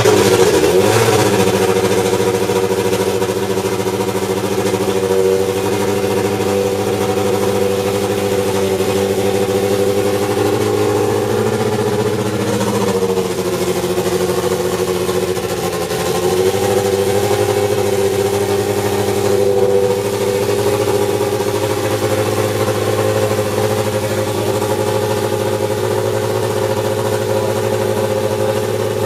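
Brabham-BMW BT52's 1.5-litre turbocharged BMW inline-four Formula 1 engine running at a steady, lumpy idle just after being fired up. The revs sag briefly about halfway through, then pick back up.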